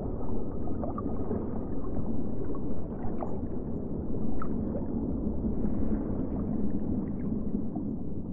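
Underwater ambience: a dense, low rumble of water with scattered small gurgling blips.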